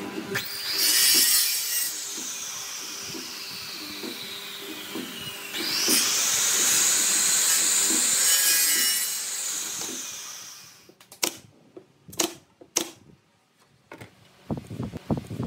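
Electric miter saw cutting a thin wooden strip twice. The motor starts and the blade goes into the wood, then winds down with a falling whine; about six seconds in it spins up again with a rising whine, runs, and winds down near ten seconds. A few sharp knocks follow.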